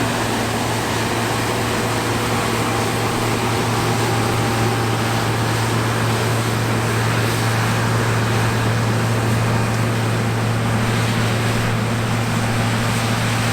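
John Deere T670i combine harvester running steadily while harvesting, a constant engine drone with a strong low hum.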